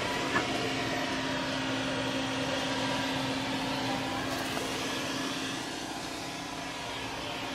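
Steady mechanical background noise with a faint low hum, and one brief click about half a second in.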